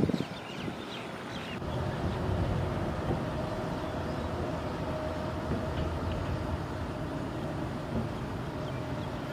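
A steady low rumble of a passing heavy vehicle sets in about two seconds in, with a faint steady hum above it. A short thump comes right at the start.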